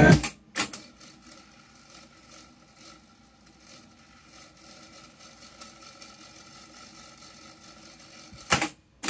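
Transport keys of an Akai GXC-725D cassette deck clunking twice in the first second as tape playback is stopped. The deck's mechanism then runs faintly and steadily, and another key clunks near the end.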